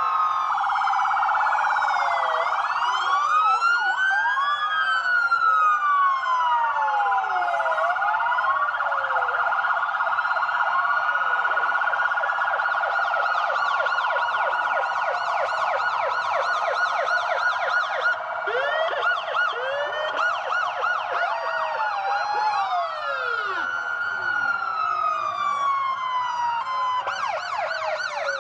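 Several police and ambulance sirens sounding at once, overlapping. Slow rising-and-falling wails mix with fast yelping sweeps over a steady high tone, and a quicker warble comes in near the end.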